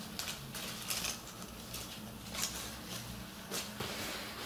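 Faint rustling of clothing being handled, with several short soft brushing sounds scattered through.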